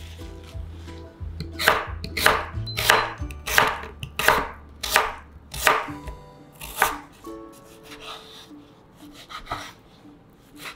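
Ceramic kitchen knife slicing lotus root into thin rounds on a wooden cutting board: a run of crisp cuts about one to two a second, fainter near the end.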